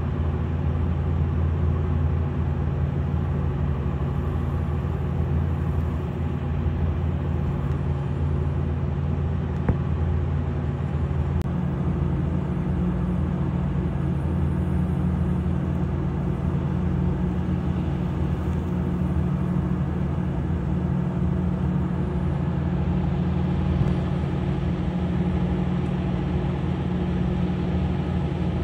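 A low, steady engine hum with no change in pitch.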